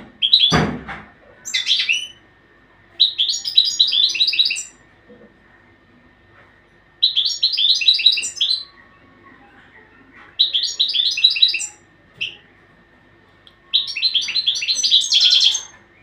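Caged European goldfinch singing in bursts of rapid, repeated twittering notes, each burst about one to one and a half seconds long, with pauses of about two seconds between them. There is a brief low thump about half a second in.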